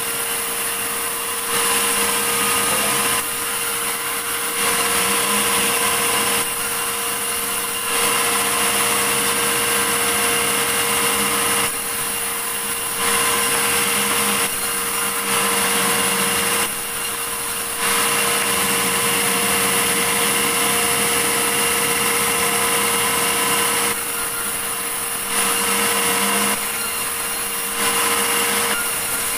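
Sawmill saw running through a large medang log, a steady mechanical whine with a hissing cutting noise that grows louder and eases back every few seconds.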